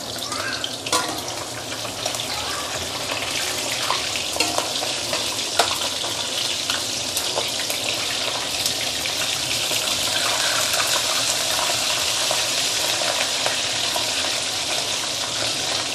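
Small whole golden threadfin bream deep-frying in smoking-hot oil in a stainless steel wok: a steady sizzle, growing a little louder over the first few seconds, with scattered sharp crackles. From about the middle a metal spatula works among the fish, turning them.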